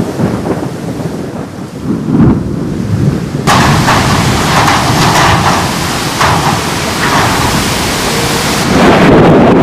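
Thunder rumbling, turning suddenly harsher and louder about three and a half seconds in, then a deep rumble swelling again near the end.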